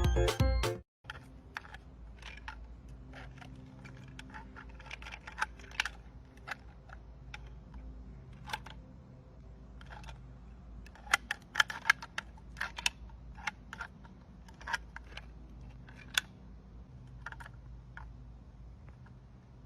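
Paper being handled: scattered light clicks and crinkles over a low steady hum, with a quick run of louder clicks around the middle.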